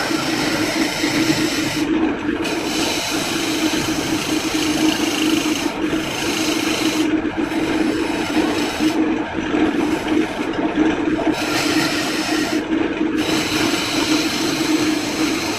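A power tool running steadily while it works wood in repeated passes. A harsh, high grinding hiss comes and goes every second or two over a constant motor hum.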